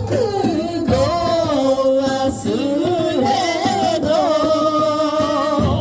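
Music with a sung melody, held and gliding vocal notes over a steady low accompaniment.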